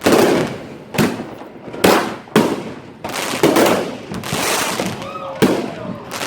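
Fireworks going off close by: sharp bangs about a second apart, then a longer crackling stretch in the middle, then another bang near the end.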